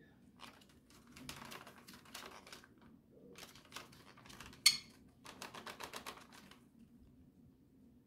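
A green conure inside a brown paper bag, chewing and scratching at the paper: bursts of rapid crinkling clicks with short pauses, and one sharp, louder snap just past the middle.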